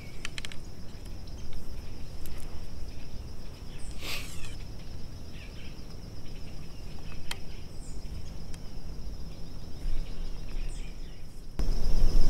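Insects trilling steadily at a high pitch, with a few sharp clicks and rustles as a compound bow and its gear are handled.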